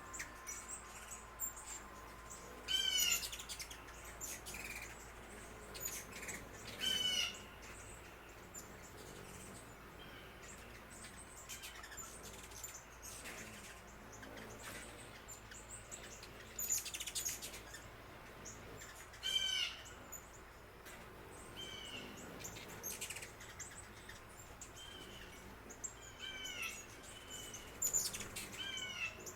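Wild songbirds calling outdoors: short bursts of high chirps that step down in pitch, repeated every few seconds, over a faint steady background hiss.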